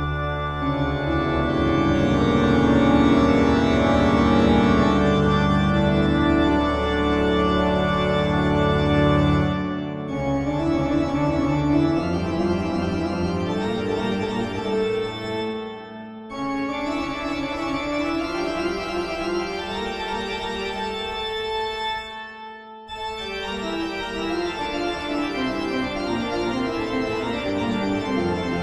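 Background music of slow, held organ-like chords, breaking off briefly about ten, sixteen and twenty-two seconds in.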